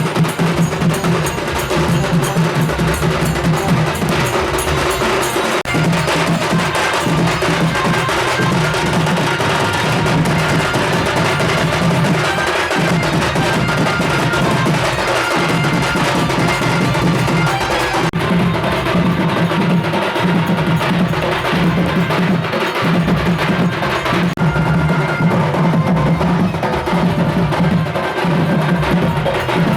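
Loud, continuous percussion-led music: fast, dense drumming and striking, unbroken throughout.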